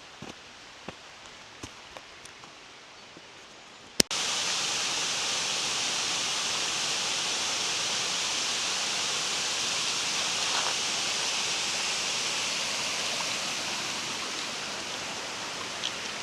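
Quiet with a few faint ticks, then about four seconds in, after a sharp click, the steady rush of a waterfall starts abruptly and holds, easing slightly near the end.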